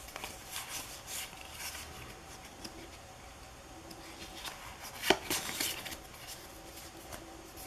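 Pokémon trading cards handled and shuffled through by hand: soft sliding and scraping of card stock against card, with a sharper tap about five seconds in.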